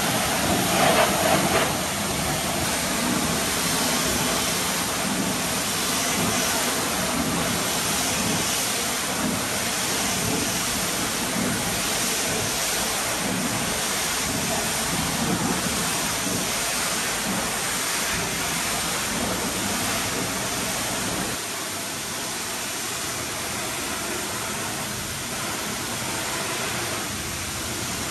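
High-pressure washer lance spraying water against a truck's bodywork: a steady, loud hiss of spray, briefly louder about a second in.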